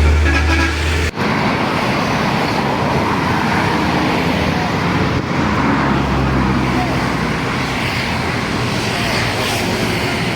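Roadside traffic. In the first second the last short notes of a bus's multi-tone telolet horn sound over a heavy engine's low rumble, then break off sharply. After that comes a steady wash of passing vehicles with engine drone.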